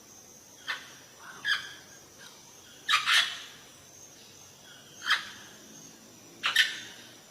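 Wild birds calling: five short, harsh calls about a second or two apart, the loudest around the middle, over a faint steady high-pitched tone.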